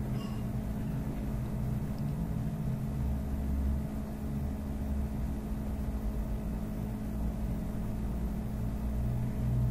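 Steady low hum with a deeper rumble that swells a few seconds in and again later.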